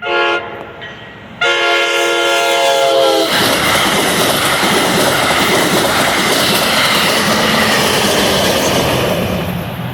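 NJ Transit Bombardier ALP-45DP passenger locomotive sounding its horn: a short blast, then a longer one of about two seconds. The train then passes, a loud steady rush of wheels on rail that fades near the end.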